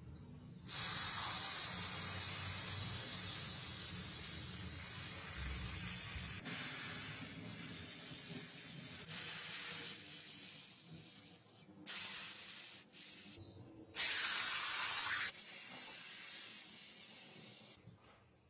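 High-pressure water jet spraying a heavily rusted old gun to strip the rust: a loud, steady hiss that breaks off and starts again abruptly several times, fading near the end.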